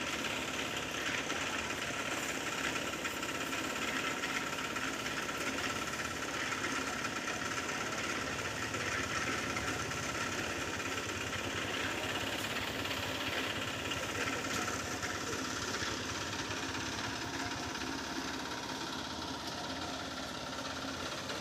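Small engine running steadily, with a fast even rattle, as a concrete mixer runs on a pour site.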